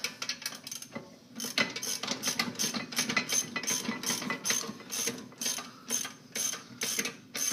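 Hand ratchet wrench clicking in quick, even strokes, about three a second, as a brake caliper bolt is backed out.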